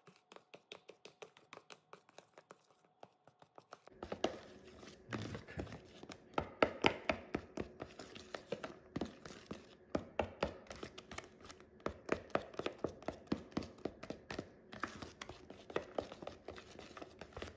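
Spoon stirring thick chocolate pudding and whipped topping in a plastic bowl, clicking and tapping against the bowl about five times a second. The stirring gets louder and more uneven about four seconds in.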